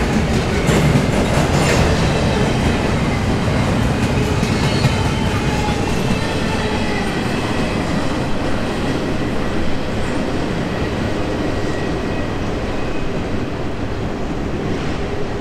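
Double-stack intermodal container cars of a freight train rolling past, their steel wheels clicking over the rail joints. The last car goes by about halfway through, and the rumble eases slightly as the train draws away.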